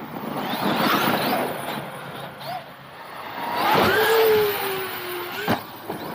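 Traxxas X-Maxx RC monster truck running hard, its brushless electric motor whining up in pitch under throttle with a rush of tyre and dirt noise, then a held whine that slowly sags. A single sharp knock near the end.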